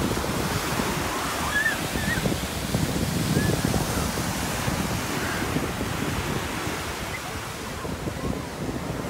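Ocean surf washing onto the beach, with wind buffeting the microphone in low rumbling gusts.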